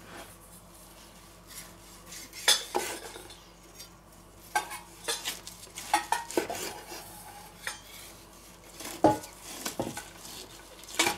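A carving knife cutting through a roast and knocking against a wooden cutting board, with the carving fork held in the meat. Scattered short clicks and scrapes, the loudest knock about nine seconds in.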